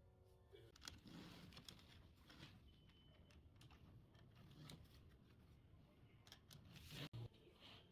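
Faint clicks, taps and rustles of kitchen handling, scattered throughout and loudest in a cluster about seven seconds in.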